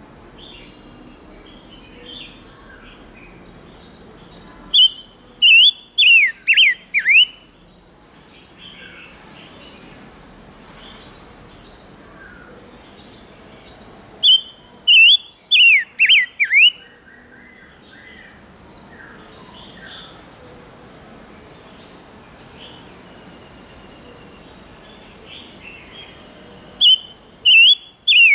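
Songbird known in Vietnam as 'ngũ sắc' calling from a lure recording. It gives three bouts of five or six loud, sharp whistled notes that sweep downward, about ten seconds apart, over quieter chirping in between.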